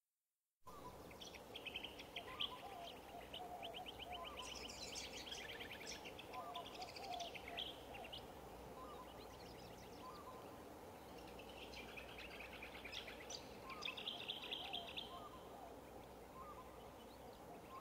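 Faint birdsong ambience starting about half a second in: several birds chirping, with repeated bursts of rapid high trills, over a low steady background hiss.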